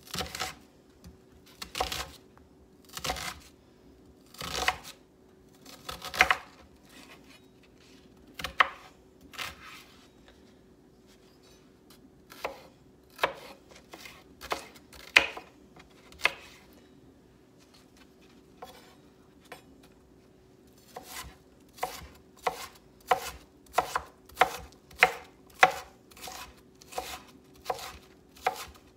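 Kitchen knife dicing an onion on a wooden cutting board. Spaced, uneven slicing strikes give way, after a short lull, to a quick, even run of chops at about two a second.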